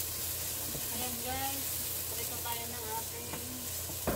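Chopped ginger and garlic sizzling in hot olive oil in a frying pan, stirred with a spatula, with a steady hiss throughout. A single sharp knock comes near the end.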